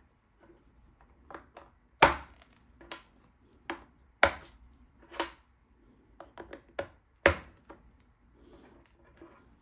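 Irregular sharp clicks and knocks of small ball bearings and metal axles being handled and fitted into a plastic filament carriage, with the three loudest knocks about two, four and seven seconds in.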